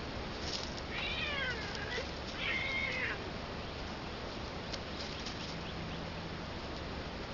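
Domestic tabby cat meowing twice, two short falling calls about a second in and again around two and a half seconds, the second one louder.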